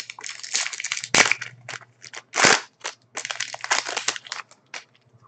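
Foil wrapper of an Upper Deck SPx hockey card pack crinkling as it is torn open and crumpled by hand. It comes in dense irregular bursts, with two louder rips about a second and two and a half seconds in, and thins out near the end.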